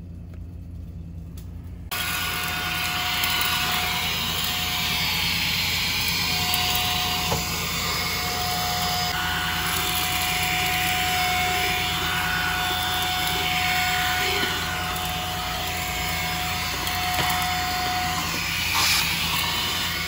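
Brigii 3-in-1 cordless handheld vacuum switching on about two seconds in and then running steadily, a rushing motor-and-airflow noise with a thin whine, its brush nozzle on a tiled floor.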